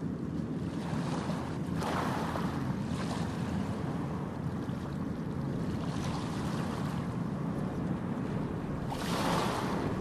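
Ocean surf on a beach: a steady wash of waves, with waves swelling and breaking about two seconds in, again midway, and most strongly near the end.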